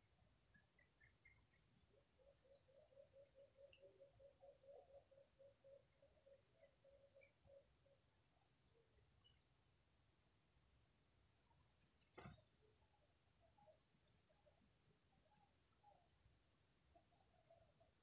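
Steady high-pitched insect trill with faint chirping above it. About two seconds in, a run of low, evenly pulsed notes lasts several seconds; a single click comes a little past the middle.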